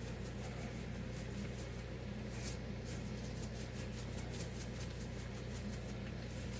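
Vegetables and sausage cooking in oil in a stoneware crock over low heat, giving a faint, steady crackle of small irregular ticks over a constant low hum.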